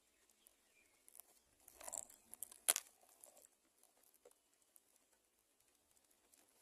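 Faint rustling and scratching of birds moving in a nest, with one sharp click about two and a half seconds in.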